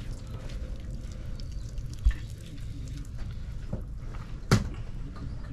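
Wet clay squishing softly under a potter's hands as the vase turns on the wheel, over a low steady rumble, with a dull knock about two seconds in and a sharper click about four and a half seconds in.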